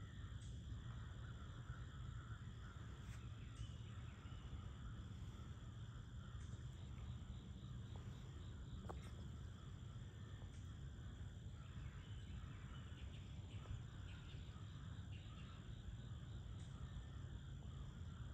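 Faint, steady chorus of crickets and other insects trilling, with scattered bird chirps and a low steady rumble underneath.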